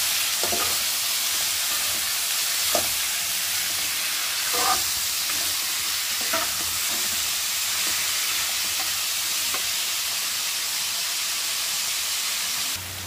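Bitter gourd and onion pieces sizzling in oil in a kadhai: a steady frying hiss, with a metal spatula scraping and knocking against the pan several times as it stirs. The hiss cuts off abruptly near the end.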